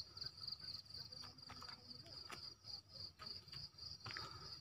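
Insects in the surrounding forest calling in a steady, high-pitched, pulsing chorus of about five pulses a second. A few faint taps, footfalls on the paved path, come through underneath.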